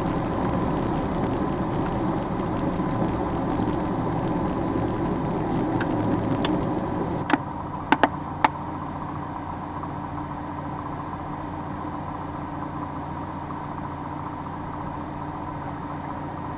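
A light single-engine propeller plane's engine running at low power while it rolls and taxis after landing. About seven seconds in, the engine note drops to a quieter steady hum, and a few sharp clicks come around then.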